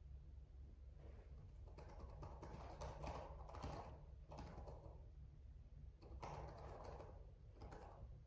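Faint computer-keyboard typing: two bursts of quick keystrokes, the second starting about six seconds in, over a low steady hum.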